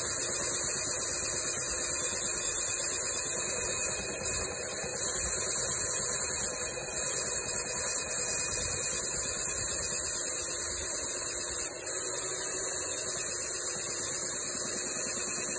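Porter-Cable belt sander running with a steady high whine, its belt grinding down a foam fishing float that a cordless drill spins as a makeshift lathe.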